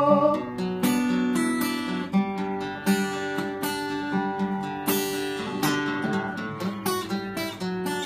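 Acoustic guitar strumming chords in a steady rhythm between sung lines. The tail of a held sung note fades out right at the start.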